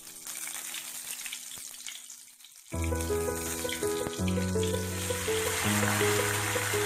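Hot oil sizzling in an aluminium kadai, with background music starting abruptly a little under three seconds in. The sizzling grows louder near the end as marinated duck pieces go into the oil.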